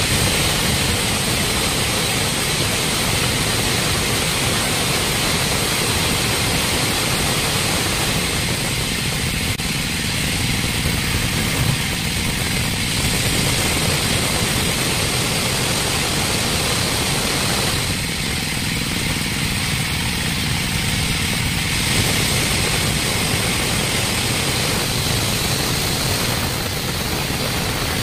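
Band saw mill running steadily while its blade saws through a heavy block of timber: a continuous loud machine hiss and rumble with a thin high steady tone, shifting slightly a couple of times as the cut goes on.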